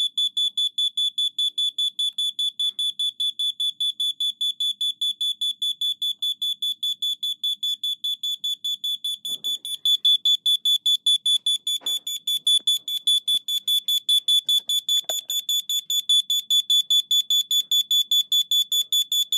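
A Kidde alarm sounding in rapid, even, high-pitched beeps after its sensor was triggered with test spray. It keeps going off because test spray is still in the sensing chamber.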